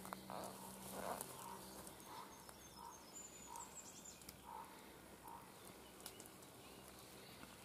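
Quiet woodland background with an animal's faint short call repeating about once a second.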